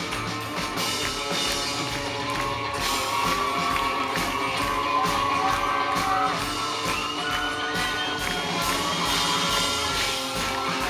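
Live rock band music: a steady beat with guitars, and a melody line gliding over the top.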